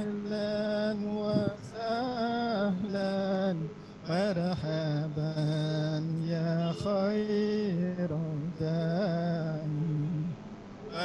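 A man chanting a sholawat, a devotional Arabic song in praise of the Prophet, in long held notes that slide up and down, with short breaks between phrases.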